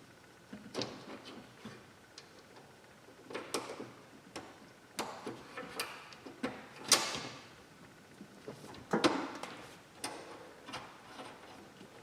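Irregular clicks, taps and knocks of a three-way fitting for a compressed-air line being handled, pushed onto the cut pipe ends and tightened by hand, with sharper knocks about 7 and 9 seconds in.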